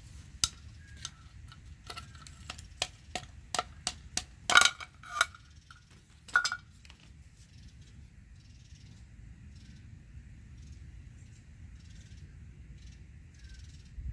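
Metal parts of a taken-apart Porsche 996 Turbo spoiler actuator clicking and clinking as they are handled and pulled apart: a quick run of sharp knocks over the first half, the loudest near the middle, then it goes quiet apart from a faint pulsing hiss.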